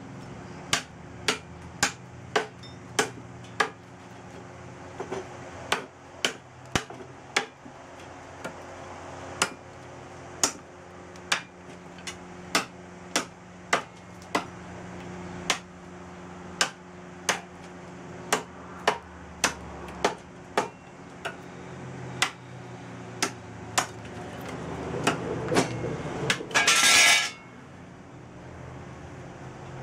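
A hand-forged spring-steel billhook chopping again and again into a hardwood branch: sharp chops, about one and a half a second, as the new blade is tested on hard wood. Near the end the chopping stops and a short, loud rushing noise rises and cuts off suddenly.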